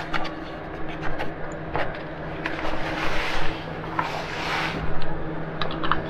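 Hands scraping, rubbing and clicking against plastic bumper trim and wiring under a van's front bumper, in irregular bursts over a steady low hum.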